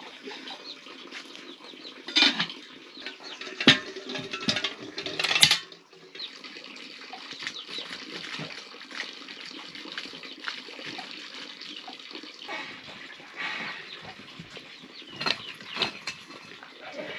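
A child clinking and knocking a steel pot lid and a metal fire poker against the hearth stones and firewood: a few sharp clanks, several in the first six seconds and two more near the end, over a steady hiss of rain.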